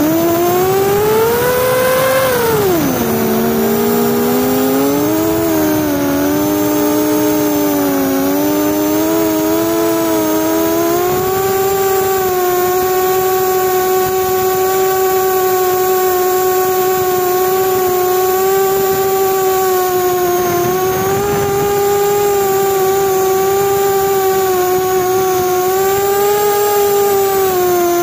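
Motors and propellers of an Explorer LR FPV quadcopter whining. The pitch climbs to a peak about two seconds in, drops and wavers, then settles to a nearly steady pitch for the rest.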